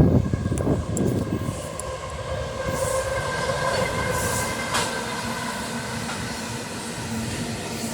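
Train passing close by on the tracks: a steady rolling rumble with a high steady whine running over it, and one sharp click about five seconds in.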